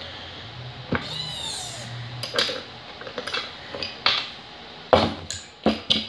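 Sharp metallic clinks and knocks, about six spread over a few seconds, as a hand-operated hydraulic battery-cable crimper is handled and the crimped lug is taken out of its die. A short high-pitched squeak comes about a second in.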